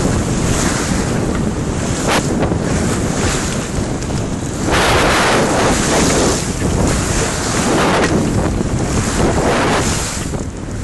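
Sea water rushing and splashing along a sailing yacht's hull as it moves through choppy water, with wind buffeting the microphone. The noise swells and eases in repeated surges.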